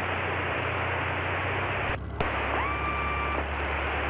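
Cessna 152's engine idling on the ground: a steady hiss over a low hum. About two seconds in the sound cuts out briefly with a click, then a short steady electronic beep sounds.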